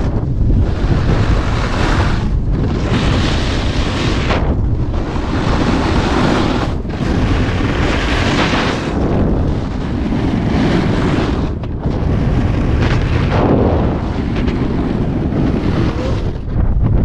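A snowboard's edge scraping across groomed snow through a series of carved turns, each scrape lasting about two seconds with a short break between turns, under heavy wind rumble on the microphone.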